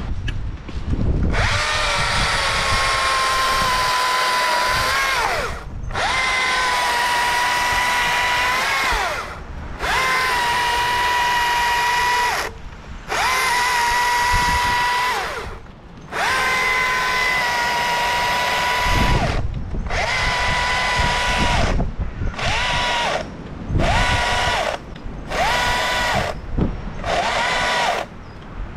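STIHL MSA 220C cordless battery chainsaw running in about ten bursts, each a steady high electric whine of a few seconds that winds down in pitch as it stops, with short pauses between; the bursts get shorter and quicker toward the end.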